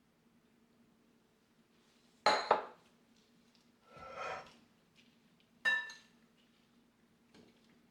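Dishes and utensils clinking: two quick ringing clinks a couple of seconds in, a softer scrape about a second and a half later, then another ringing clink, over a low steady hum.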